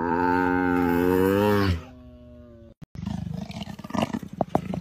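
Tiger vocalising through a wide yawn: one loud call of about two seconds with a wavering pitch that breaks off and trails into a fainter steady tone. After a short gap, a lower rough rumbling follows, with a few sharp clicks.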